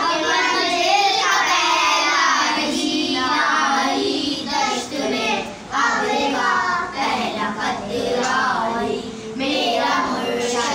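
A group of children singing a manqabat, a devotional Urdu poem in praise of Imam Ali, together in phrases.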